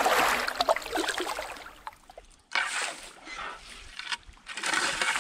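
Canoe paddling: water splashing and trickling off a wooden paddle blade, in three stretches broken by two short pauses, the first about two seconds in and the second just after four seconds.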